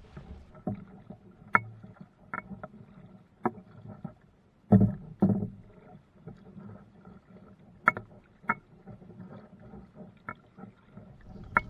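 A canoe being paddled: irregular short knocks and splashes of the paddle against the hull and the water, every second or so, with a louder pair about five seconds in.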